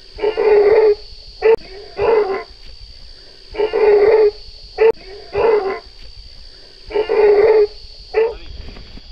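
Asian elephant calf crying out in distress as it is hauled from a ditch by a rope: six loud calls of about half a second each, at a steady pitch and about a second and a half apart, with three short sharp cries among them.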